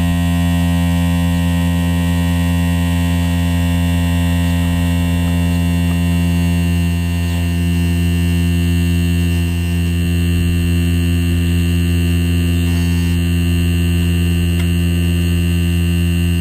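Solar-heated diaphragm Stirling-cycle generator running, a loud steady buzz with many overtones, dipping slightly about nine seconds in. The dish it is mounted on amplifies its vibration, making it quite noisy.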